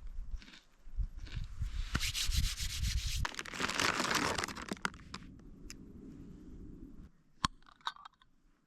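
A knife scraping spread across a crisp corn cake: a loud dry rasping from about two seconds in that fades after about five seconds, with a few sharp clicks near the end.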